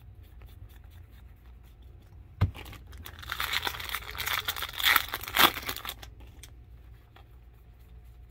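A single knock about two seconds in, then about three seconds of crinkling and tearing as a foil baseball-card pack wrapper is ripped open, with two sharper rips near the end.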